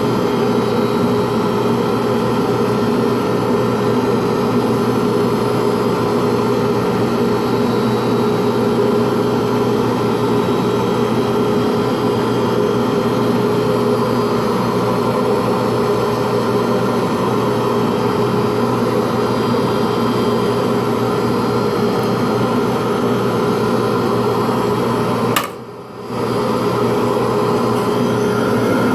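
Motor of the pen-turning machine running steadily with a constant hum, spinning the pen blank during the final 12,000-grit sanding. The sound drops out briefly for about half a second, about 25 seconds in.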